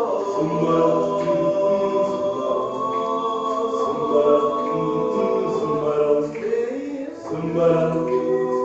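Choir singing a cappella in several-part harmony, held chords with a brief dip in loudness about seven seconds in.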